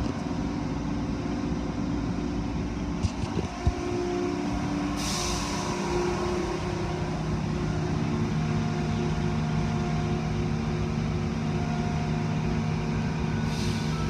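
Automatic tunnel car wash heard from inside the car: a steady hum of the wash machinery, with a few knocks about three seconds in. Hissing bursts of spray hit the car about five seconds in and near the end, and a deeper steady hum sets in about eight seconds in as the brushes reach the car.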